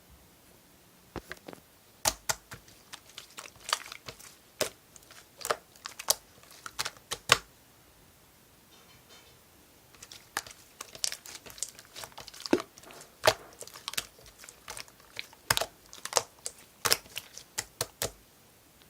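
Marbled slime being squeezed and poked, giving irregular sharp clicks and pops, often in quick clusters, with a pause of about two seconds midway.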